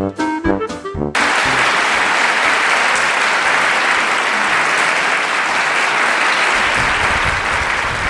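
Brass-led swing music cuts off about a second in, replaced abruptly by loud, steady applause.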